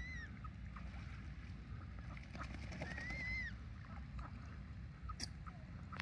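Ducks calling on a park pond: two drawn-out calls that rise and then fall, one right at the start and one about three seconds in, over a steady low background rumble, with a sharp click about five seconds in.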